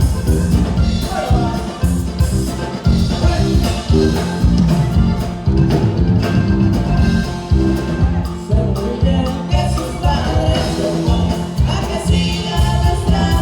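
Norteño band playing live, with accordion and bajo sexto over bass and drums keeping a steady beat.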